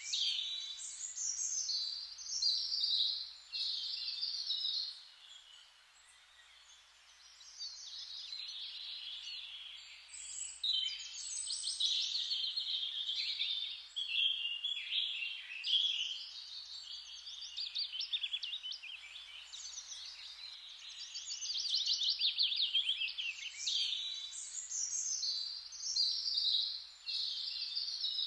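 Several songbirds singing at once, with rapid chirps and trills overlapping almost without pause and a short lull about five seconds in.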